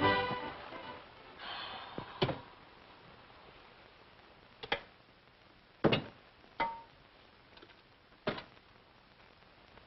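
Music ending at the start, then half a dozen separate knocks and clinks of crockery as a bowl and plates are handled and stacked, one clink leaving a short ring.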